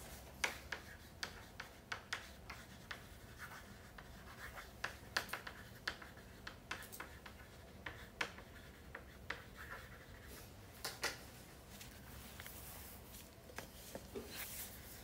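Faint, irregular taps and clicks, a couple of dozen scattered through, with a few short light scratching sounds among them over a steady low hum.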